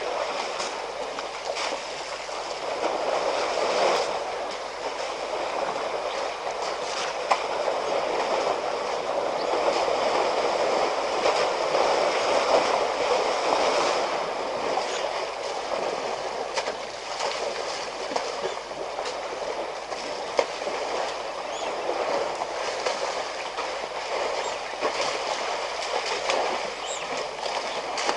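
African elephants wallowing in a muddy waterhole: a steady wash of water and mud sloshing and splashing, swelling and easing, with a few faint clicks.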